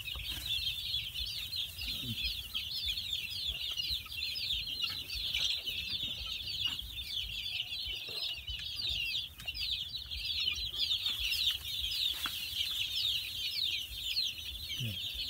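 A large flock of young chicks peeping together: a continuous chorus of many overlapping short, high, falling peeps.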